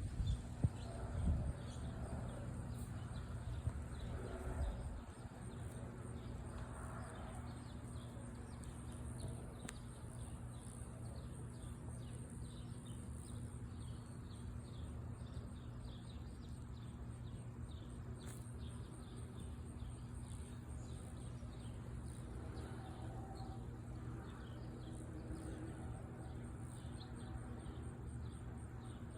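Outdoor ambience while waiting for a siren: faint birds chirping over a steady low hum, with a low rumble in the first few seconds that then dies down.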